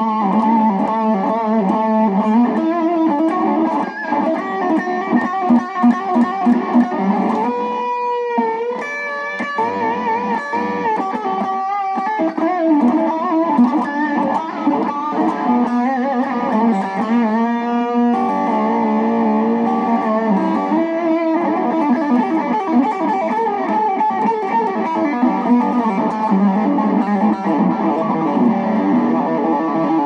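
Purple Fender Stratocaster electric guitar played through a Line 6 POD XT amp-modelling preset in a fat Strat tone. It plays a continuous lead line high on the neck, with string bends and vibrato in the middle stretch.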